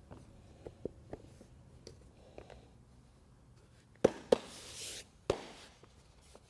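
Handling noise: a few light taps, then two sharp snaps close together followed by about a second of rustling hiss, and a third snap with a shorter hiss.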